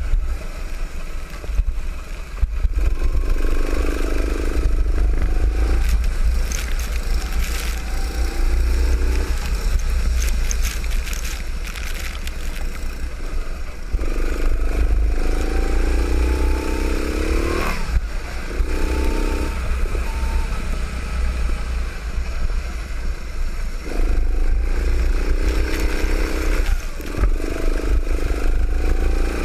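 Go-kart engine heard from on board, revving up in pitch over several seconds on each straight and falling back off for the corners, with a sharp drop off the throttle about eighteen seconds in. A heavy, steady low rumble of wind buffeting the microphone runs underneath.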